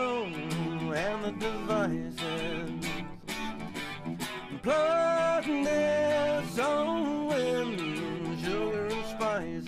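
Live music: guitar strumming in a steady rhythm with a gliding melody line on top.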